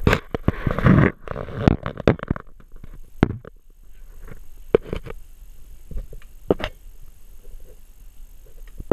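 Handling noise: rustling and scraping with scattered sharp clicks and knocks, busiest in the first second or so, as the camera is moved around and brushes against parts in the engine bay.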